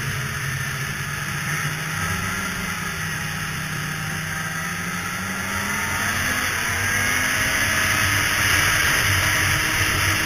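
Polaris two-stroke snowmobile engine running at trail speed under a hiss of wind and track noise. The engine note sags a little about halfway through, then climbs in pitch and grows louder toward the end.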